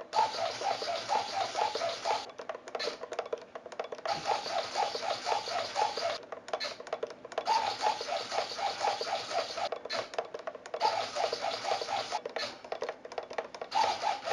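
Two hobby RC servos whirring and buzzing as they sweep the model's control surfaces back and forth, their pitch wavering with each movement. The buzz cuts out several times for a fraction of a second and then comes back: the servos stop each time the power is cut to simulate a voltage loss, and resume once the receiver reconnects.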